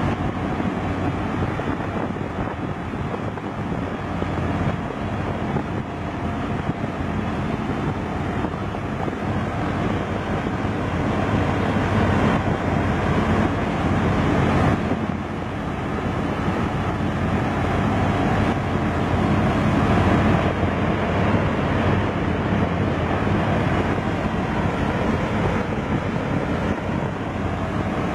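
Sevtec Vanguard hovercraft's engine and fans running steadily as it cruises on hover, with wind buffeting the microphone. The noise swells and eases slightly but never stops.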